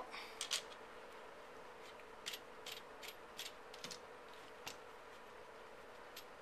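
About ten faint, scattered small clicks and taps as the gas cylinder lock is handled and threaded onto the muzzle end of an M1 Garand's barrel.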